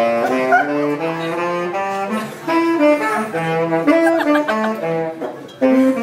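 Saxophone played solo: a single melody line of held notes and quick runs, with a short pause about five seconds in.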